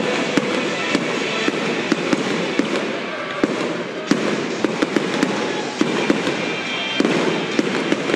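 Aerial fireworks display: shells bursting in sharp, irregular bangs, about one or two a second, over a continuous wash of sound.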